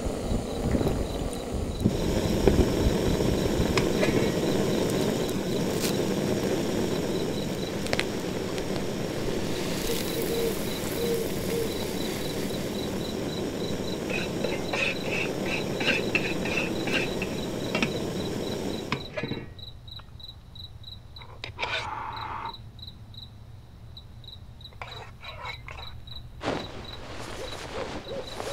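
A cricket chirps steadily in a fast high pulse over the steady hiss of a backpacking gas canister stove's burner, which cuts off about two-thirds of the way through. Midway, a spoon scrapes and clinks in a metal pot.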